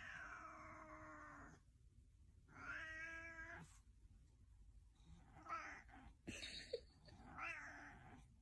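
Domestic cat meowing faintly, four drawn-out meows a second or two apart, the first two the longest at about a second each.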